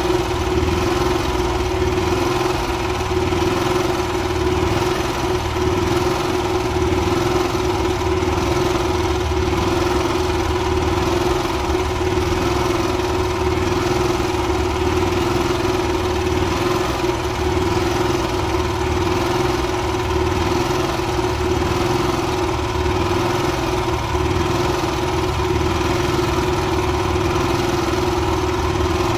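Honda EB5000i inverter generator's engine running steadily, a continuous even hum with no change in speed.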